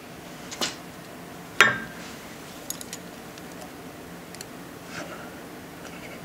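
A few sharp clicks and knocks as the hydraulic press's round pressing plate is handled by hand. The loudest, about a second and a half in, has a short ring, and faint ticks follow.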